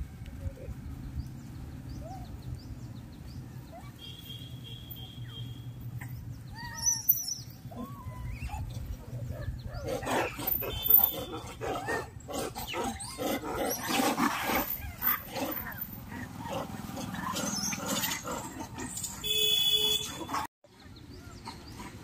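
Macaques calling: scattered short calls at first, then from about ten seconds in a dense run of harsh calls lasting some ten seconds.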